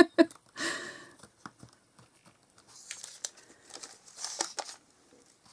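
Light crinkling rustles and small clicks of card and plastic being handled on a craft table.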